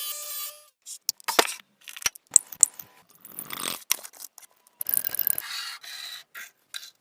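Short, irregular metal scrapes and sharp clinks, with a brief faint ringing tone near the middle.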